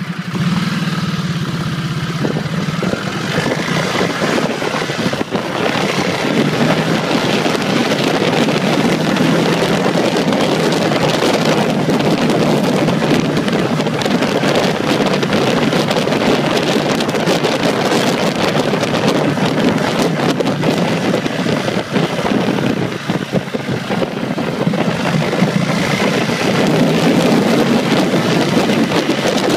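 Ducati Multistrada's L-twin engine pulling away from walking pace and running hard up to about 50 mph, with wind buffeting the microphone as speed builds. The engine note eases briefly about three-quarters of the way through.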